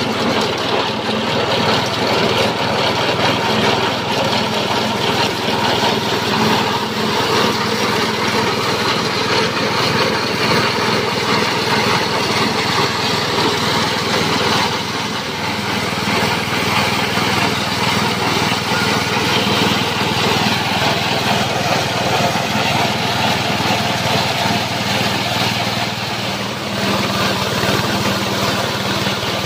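Small petrol engine running steadily under load, driving a multipurpose chopper-grinder (JG 125) as dry material is fed through it and ground. The engine note shifts slightly near the end.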